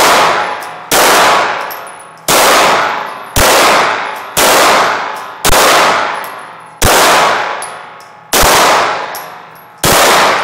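Eight pistol shots fired one at a time, a second to a second and a half apart. Each is followed by a long ringing echo off the walls of the indoor range.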